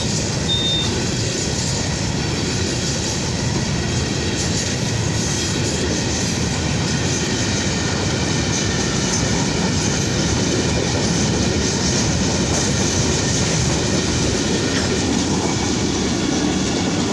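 Long freight train's wagons rolling past at close range: a steady, unbroken rumble of steel wheels on rail.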